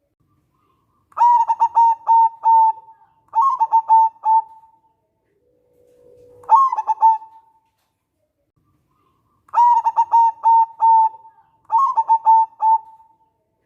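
Zebra dove (local perkutut) cooing: five phrases of quick, clipped coo notes, each a short run with gaps of silence between. One phrase, about halfway through, opens with a lower held note before rising into the run.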